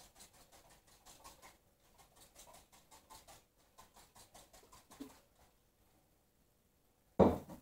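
Hand trigger spray bottle squirting water onto bread dough to keep the crust moist while it rises: a quick run of faint short squirts, about three a second, over the first five seconds. Near the end comes one loud short knock or thump.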